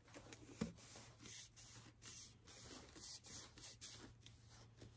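Near silence with faint rustling and light clicks of craft supplies being handled on a table, and one sharper small tap about half a second in.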